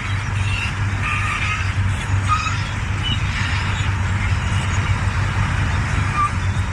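Large crawler bulldozer's diesel engine running steadily with a low drone. Short high squeaks come through it every second or so.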